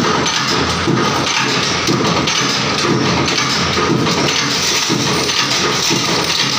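Stainless-steel screws clattering down a sheet-metal chute into a steel pan, over the steady, loud running of the screw-making machine.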